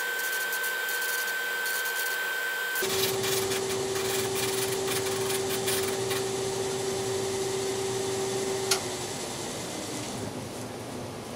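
Drum sander and dust-collection vacuum running while a wooden piece is sanded, a steady machine whine. About three seconds in the noise changes to a lower hum. A sharp click comes near nine seconds, after which the hum sags slightly in pitch and slowly fades.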